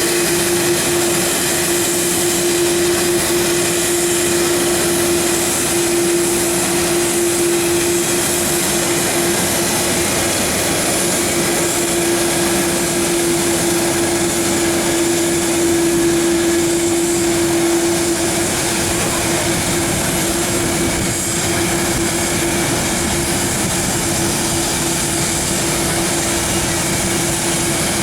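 Aircraft engines running with a steady, loud drone and a constant hum, which weakens a little about two-thirds of the way through.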